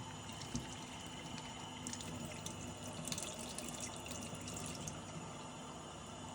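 Tap water running steadily into a sink while a boiler's condensate trap is rinsed out under it, with louder splashing in the middle.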